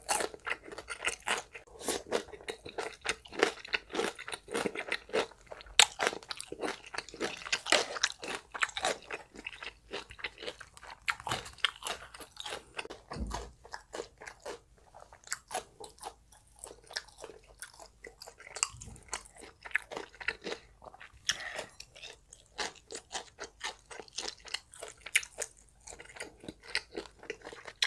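A person chewing and crunching mouthfuls of rice and Korean side dishes close to the microphone, with many quick, irregular wet mouth clicks and crackles.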